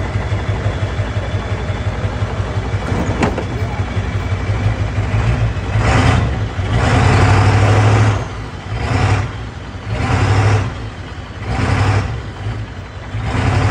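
A truck's diesel engine idling, then revved in short bursts about every second and a half, starting around five seconds in.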